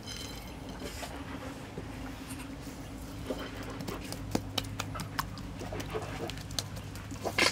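Coarse salt sprinkled over a whole raw chicken, then hands rubbing and patting the salt into the wet skin: a faint patter at first, then irregular soft slaps and clicks. A steady low hum runs underneath.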